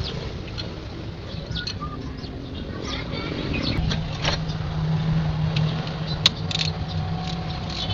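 A motor vehicle engine running with a low steady hum that sets in about four seconds in, with scattered short high chirps and clicks and one sharp click near the end.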